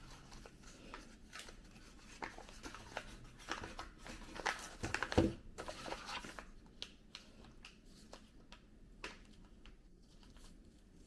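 Paper gift wrapping being unwrapped by hand, rustling and crinkling in short bursts, with a soft thump about five seconds in.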